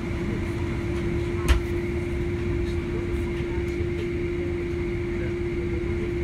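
Cabin noise inside a Boeing 767-300ER taxiing: the steady rumble of the jet engines at idle and the cabin air, with an unbroken hum at one pitch. A single sharp click about a second and a half in.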